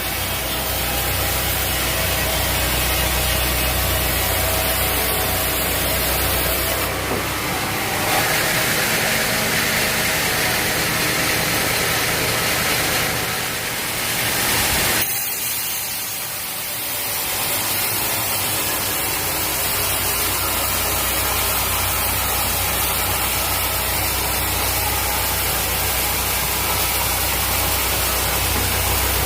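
Sawmill machinery running with a steady low engine hum. From about seven seconds in the hum gives way to a brighter hiss, which cuts off suddenly about halfway through, and the hum then builds back.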